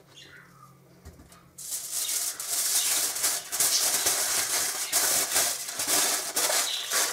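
Aluminium foil being crumpled and folded by hand around a garlic bulb: a dense crinkling rustle that starts about a second and a half in and goes on without a break.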